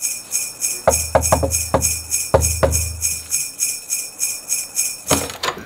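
Christmas music intro led by sleigh bells shaken in a steady rhythm, about three shakes a second, with a few struck notes over a low bass tone in the first half. It ends on a louder final hit about five seconds in.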